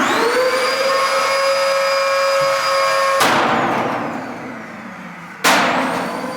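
A vacuum cleaner's motor spins up with a rising whine and runs steadily, and a sledgehammer strikes the running cleaner twice, about three seconds in and again near the end, with the motor still whining after the blows.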